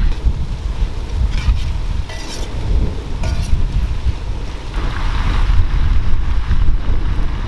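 Wind buffeting the microphone, a loud, uneven low rumble, with a few brief clicks about one to three seconds in.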